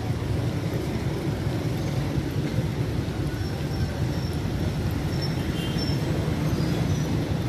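Steady rumble of street traffic: a jeepney's and motorcycles' engines running as they pass on the road.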